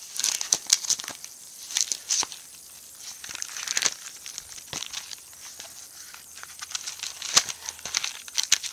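Photos and album pages being handled and shuffled close to the microphone: irregular rustling, crinkling and small clicks and taps.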